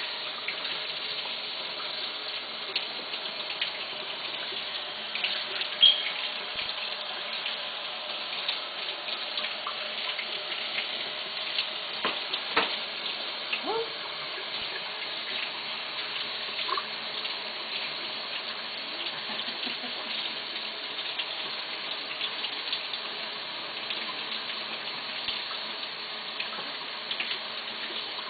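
Tap water running steadily into a sink during a small monkey's bath, with occasional splashes and sharp clicks; the loudest is a sudden sharp sound about six seconds in.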